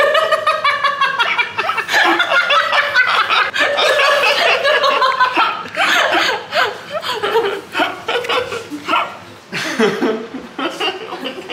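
People laughing hard in long, nearly unbroken peals, with a short lull before more laughter near the end.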